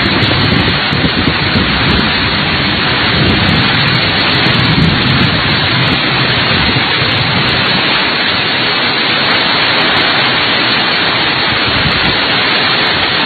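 Heavy rain from a summer thunderstorm pouring down hard and loud, steady throughout, with a deeper rumble beneath it during the first five seconds or so.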